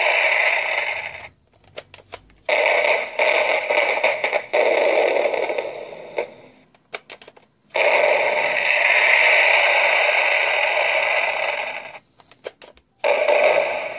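Uncle Milton 3D Fireworks Light Show launcher toy playing its electronic fireworks sound effect through a small speaker. Hissing, crackling bursts start suddenly and fade over a few seconds, one after another, with sharp clicks in the short gaps between them.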